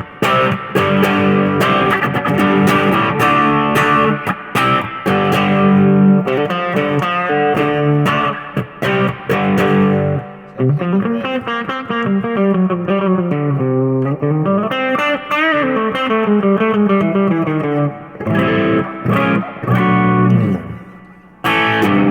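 Electric guitar played through a Klon-style overdrive pedal: strummed chords, then from about ten seconds in a single-note lead phrase with string bends and vibrato, then chords again near the end.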